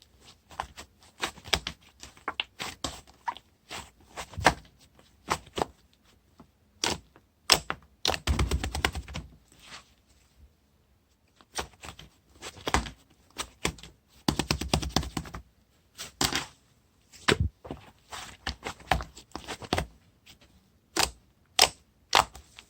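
Fluffy shaving-foam slime being pressed and poked by hand, giving a quick, irregular run of sticky clicks and pops. Two longer, denser squishes come about eight and fourteen seconds in, with a short pause around ten seconds.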